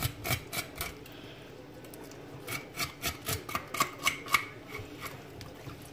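A kitchen knife blade scraping along a fish's skin in quick repeated strokes, scaling the fish. There are a few strokes, a pause of about a second and a half, then a faster run of about three scrapes a second.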